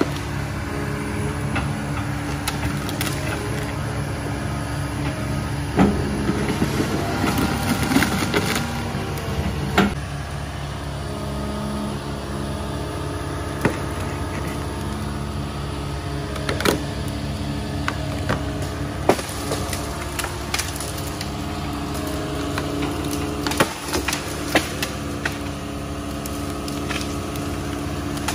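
John Deere hydraulic excavator's diesel engine running steadily, with scattered sharp cracks of wood snapping as it pushes a tree over.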